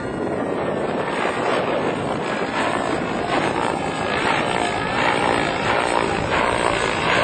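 Raptor 90 radio-controlled model helicopter in flight, its nitro engine and rotor running continuously. From about the middle on, the sound swells and fades in quick repeated pulses.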